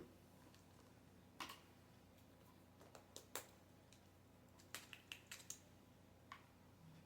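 Near silence with faint, scattered clicks and light taps, about a dozen, several close together past the middle, like small objects being handled.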